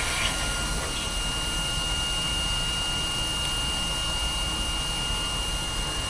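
Sharp EC-KR1 cordless stick vacuum running at a steady suction, a whooshing airflow with a thin high motor whine, its paper dust bag packed full. It is drawing air up a clear tube and holding up a ball, still pulling firmly with the full bag.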